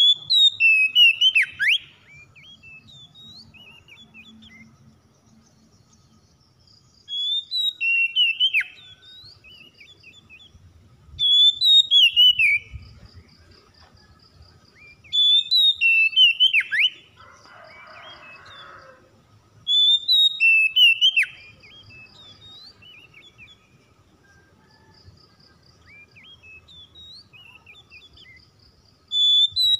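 Oriental magpie-robin singing loud whistled song phrases of about two seconds each, six times, full of sharp downward-sliding notes. Between the phrases come faint high repeated chirps, and a brief harsh rasp a little past the middle.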